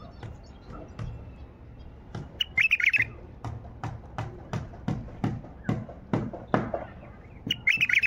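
Caged white-eared bulbul (Baghdadi bulbul) singing: a quick warbled phrase about two seconds in and again near the end, with a run of sharp clicks about twice a second between the phrases.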